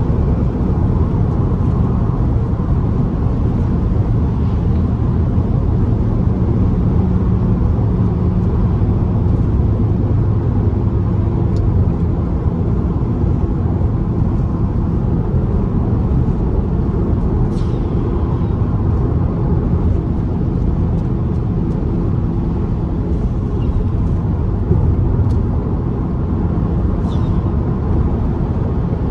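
Fiat Bravo T-Jet's 1.4 turbo four-cylinder running at a steady cruise on the highway, a continuous low engine drone mixed with road noise.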